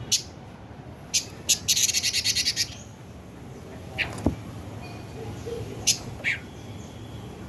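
Pekin robin calling: a few sharp, high clicking notes, a fast rattling trill of about ten notes about two seconds in, then a couple of short falling chirps.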